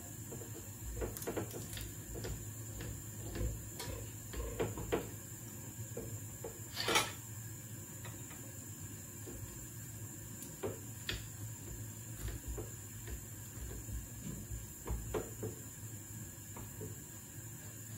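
Kitchen handling noises: scattered knocks and clicks of cupboard doors, dishes and utensils, with one sharper knock about seven seconds in, over a steady low hum.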